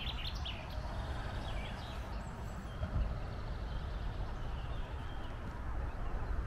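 Riverside outdoor ambience: a steady low rumble with faint bird chirps now and then, and a single brief bump about three seconds in.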